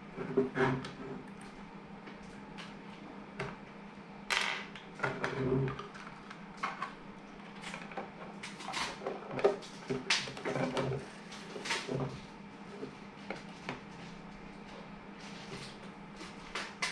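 Plastic switch-box enclosure parts handled and fitted together by hand on a wooden desk: irregular clicks, knocks and short scrapes. A steady low hum runs underneath.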